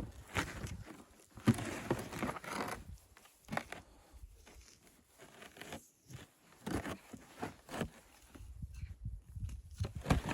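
Footsteps crunching in snow, coming in irregular clusters with short quiet pauses between them.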